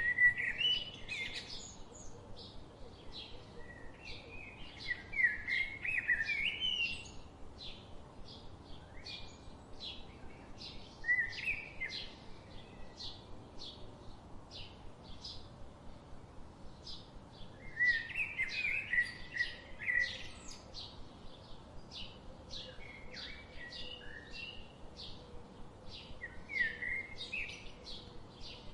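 Songbirds chirping and singing: a steady run of short, high chirps about two a second, with louder warbling song phrases breaking in every few seconds.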